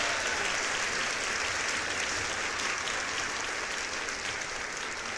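Applause: dense, steady clapping that slowly fades.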